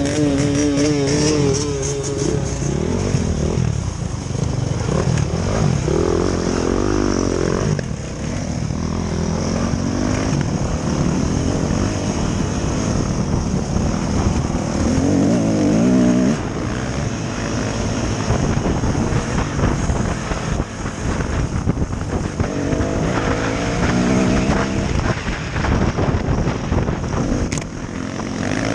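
Yamaha dirt bike engine revving up and down under the rider, its pitch rising and falling again and again with throttle and gear changes as it is ridden over trail.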